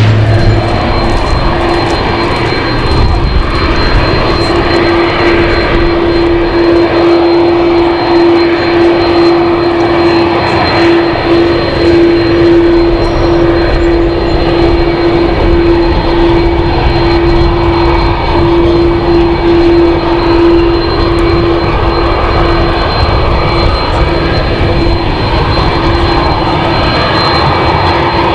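Airbus A330 jet engines running at taxi power: a steady whine over a broad rush. Right at the start, the low drone of a departing Dash 8 turboprop fades out.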